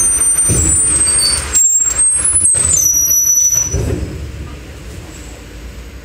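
Trolleybus braking to a halt: a heavy rumble with thin high-pitched whines that step and slide, dying down to a quiet hum about four seconds in as the bus stops.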